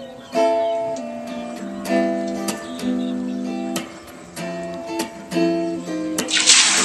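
Background acoustic guitar music, strummed and plucked chords. Near the end, a sudden loud sizzle as raw ube (purple yam) sticks drop into hot cooking oil in a wok and start to fry.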